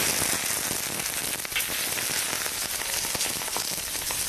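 Hot oil poured over dried red chillies, Sichuan peppercorns and scallions on a bowl of maoxuewang, sizzling steadily with a scatter of small crackles. This is the final hot-oil pour that blooms the spices.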